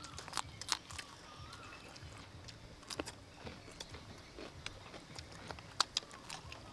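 Crisp crunches of raw cucumber being bitten and chewed, heard as scattered sharp snaps with the loudest pair near the end.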